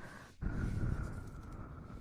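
Close-miked ASMR mouth sounds: breathy, noisy sound right at the microphone, broken by a short pause about half a second in.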